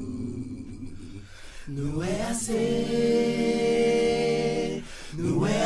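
Men's voices singing a cappella in harmony, in long held chords. One chord fades out, then after a short gap a new chord swells in and is held for about three seconds before breaking off near the end.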